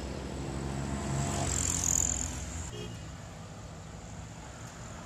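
Engine of a Mitsubishi Montero Sport SUV running, heard close to its exhaust; it swells to its loudest about two seconds in, then settles to a quieter hum.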